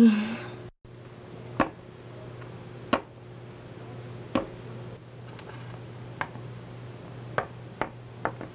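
Hard plastic toy figurines tapping and clicking on a tabletop as a hand moves them, about seven short scattered taps over a faint steady hum.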